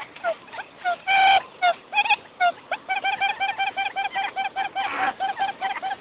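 Quail calls used as a hunting lure: a few separate notes and one longer held note about a second in, then a fast run of short repeated notes, about six a second, from about halfway through.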